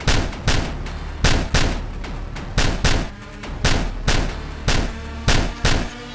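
Gunshot sound effects dubbed over a Nerf blaster battle: about a dozen sharp shots with a short ring after each, mostly in quick pairs, over a steady low hum.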